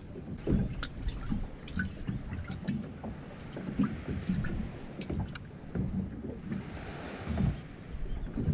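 Water lapping and slapping against the hull of a small boat, with wind on the microphone and irregular low knocks.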